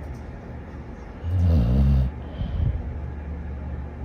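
Dog snoring: one loud, low, buzzing snore about a second in that lasts under a second, followed by quieter breathing.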